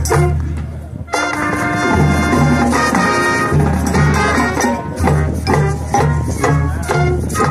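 High school marching band playing: brass with a steady drum beat. About a second in the sound briefly thins out, then the full brass section comes in with held chords and the beat picks up again.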